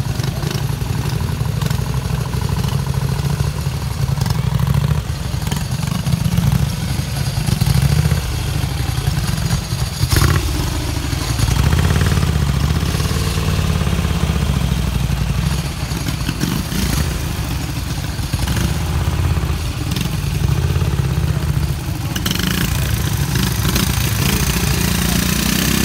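Vintage motorcycle engines running close by: a fast, loud, low exhaust beat that continues steadily, with some rising and falling in pitch around the middle.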